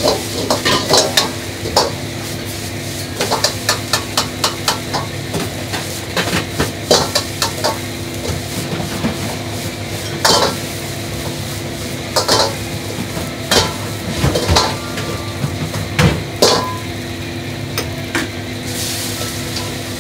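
Fried rice being stir-fried in a wok over a gas burner: the metal ladle scrapes and clanks against the wok in quick runs of strikes, over steady sizzling and a hum.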